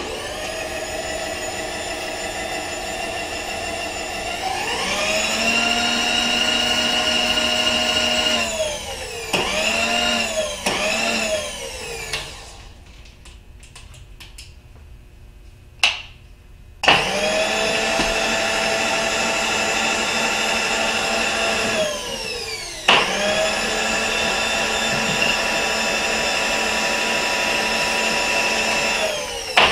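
Bridgeport X-axis power feed motor driving the mill table: an electric whine with several overtones that rises in pitch about four seconds in and then holds steady. It breaks into a few short stop-start bursts and goes quiet for about four seconds, with a couple of clicks. It then starts abruptly and runs steadily for two long stretches, broken by a brief stop.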